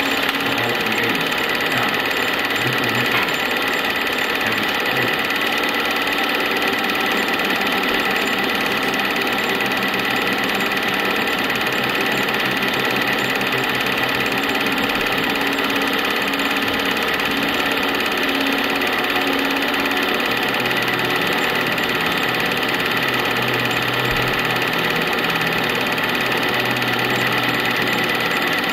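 Film projector running: a steady mechanical whir with a constant high tone over it.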